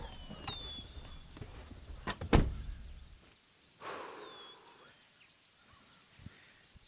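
A pickup truck door shuts about two seconds in with a sharp double thunk, the loudest sound here. A low rumble stops soon after, leaving short falling bird chirps and an evenly pulsing insect call.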